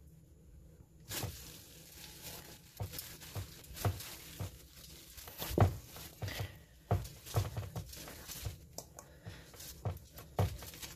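Hands pulling and folding sticky, overnight-fermented bread dough in a stainless steel bowl. From about a second in there are irregular wet squelches and tearing sounds of the dough, with light knocks of fingers against the bowl.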